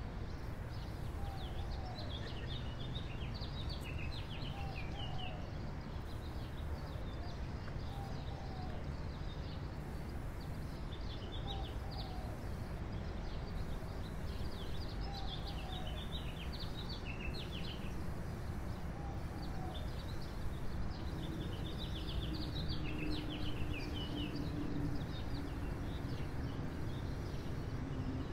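Small birds chirping and twittering in scattered bursts, with a short, soft, lower call repeating about every two seconds, over a steady low background rumble.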